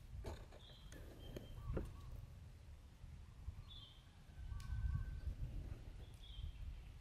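Faint short, high-pitched chirping calls from a small animal, repeating every two to three seconds over a low rumble, with a few clicks in the first two seconds.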